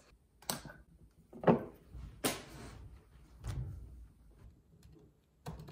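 Handling noise on a desk as a phone camera is set down beside a laptop: a few soft knocks, the loudest about a second and a half in, and a brushing rustle, then a few light clicks near the end.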